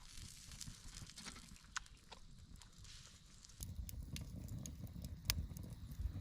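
Scattered light clicks and knocks over a low rumble that grows louder about three and a half seconds in.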